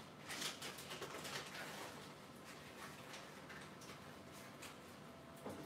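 Quiet kitchen with a few faint, soft knocks and rustles in the first second and a half, then near stillness until another faint knock near the end.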